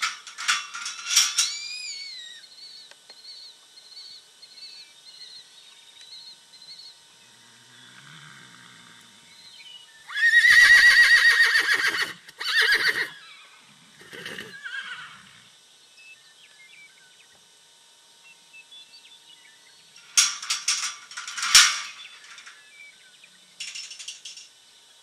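A horse whinnies loudly for about two seconds about ten seconds in, followed by two shorter calls. The steel pipe-panel gate rattles and clanks near the start and again about twenty seconds in.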